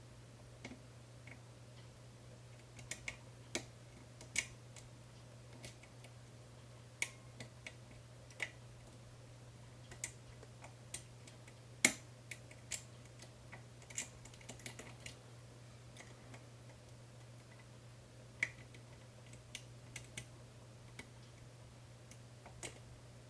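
Faint, scattered metallic clicks and ticks from a pick lifting and rotating the pins of a 5-pin Medeco cam lock under tension, about one a second at irregular intervals, the sharpest about twelve seconds in.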